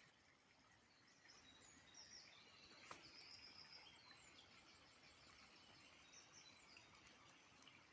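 Near silence outdoors with faint, high chirps and trills from small birds in the background, and a single soft click about three seconds in.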